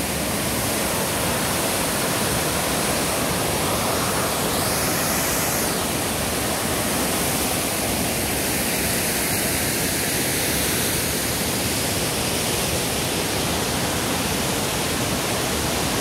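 A large waterfall, El Chiflón's Velo de Novia cascade, giving a steady, unbroken rush of falling water heard close to the falls.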